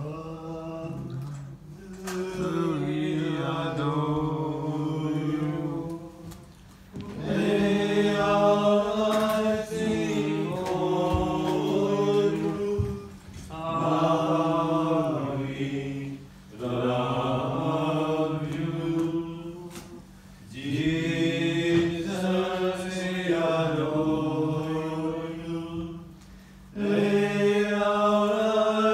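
Men's voices chanting a liturgical hymn in long sung phrases with brief breaths between them, over a steady low held tone.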